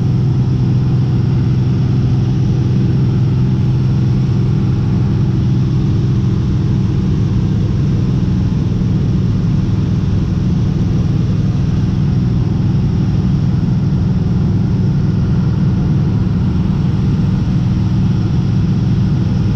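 Cessna T210 Turbo Centurion's turbocharged six-cylinder Continental engine and propeller droning steadily in cruise flight, heard inside the cabin.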